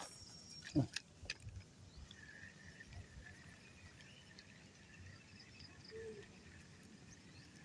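Faint rural outdoor ambience with thin, high wildlife calls held in the background, and a few light clicks in the first second and a half.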